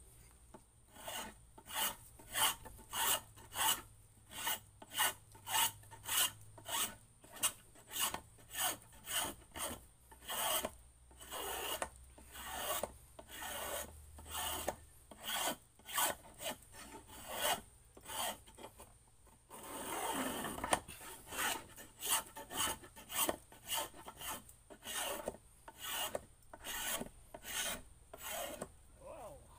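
Repeated scraping strokes of a hand tool working along a wooden paddle handle, about one and a half strokes a second, shaving the grip down by hand. About two-thirds of the way through, the strokes briefly run together into one continuous scrape.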